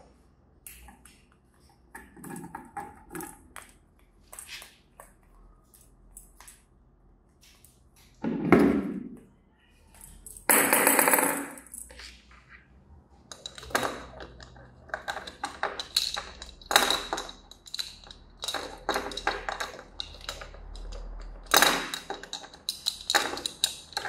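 A blue-and-gold macaw playing with small plastic toys on a wooden tabletop: a run of taps, knocks and rattles as it beaks and pushes them, with a recurring high ping in the second half. There are two longer, louder noises about eight and eleven seconds in.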